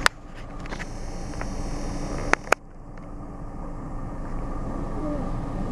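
Steady low rumble of a vehicle driving slowly, heard from inside its cabin. There is a sharp click at the very start and two quick sharp clicks about two and a half seconds in.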